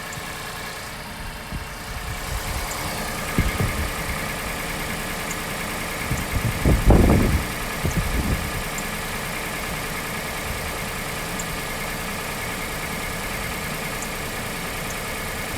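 2016 Acura MDX's 3.5-litre V6 idling after a cold start, with a faint, short, high chirp recurring every one to three seconds. The owner suspects the timing-belt tensioner, water pump or idler pulleys, since a new timing belt and the service-bulletin shims have not cured the chirp. A few low thumps come around the middle.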